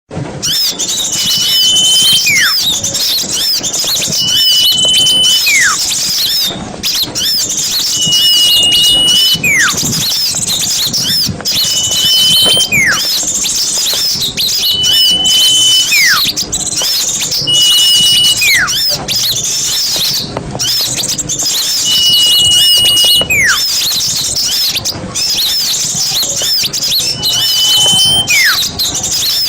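Bird-lure recording of many small birds chattering and calling together. A clear whistle repeats about every two to four seconds: a held note, then a quick falling note.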